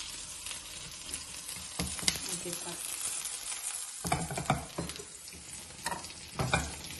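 Potato cutlets sizzling in shallow oil in a non-stick frying pan, a steady hiss. Several short scrapes and knocks come through it as a silicone spatula lifts the cutlets out of the pan.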